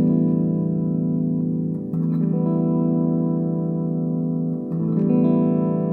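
Electric guitar strummed through an Ampeg V4 valve amplifier, chords left to ring, with a new chord struck about two seconds in and again near the end. The amp's treble control is at its neutral setting.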